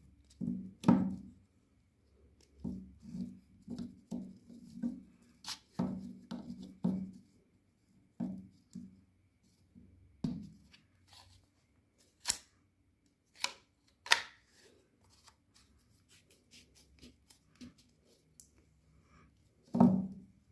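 Hard plastic pipe fitting being handled: a threaded coupling is twisted and worked on the end of a green plastic pipe, giving a run of clicks, taps and rubbing. There are a few sharper clicks in the middle and a louder knock near the end.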